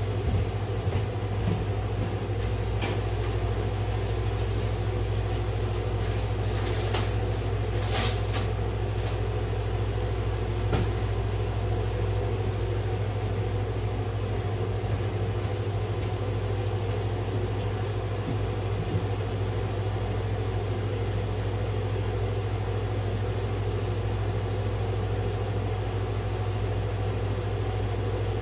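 Window air conditioner, a Midea 5000 BTU unit, running with a steady drone and low hum. A few light knocks and rustles come in the first ten seconds or so.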